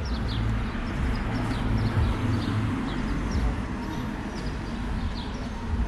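City street ambience: a low traffic rumble from cars on the road, heavier in the first few seconds, with small birds chirping in short, high calls throughout.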